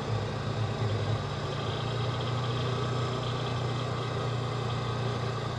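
Engine of a Polaris Ranger 4x4 running while driving, a steady low drone that is a little uneven in the first second, then holds even.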